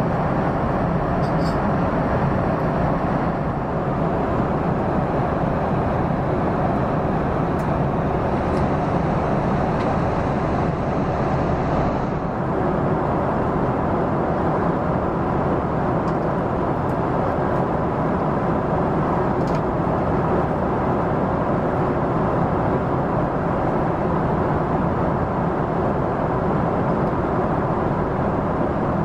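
Steady cabin noise of a Boeing 777 in cruise flight, heard inside the cabin: the even rush of jet engines and airflow past the fuselage, unchanging throughout.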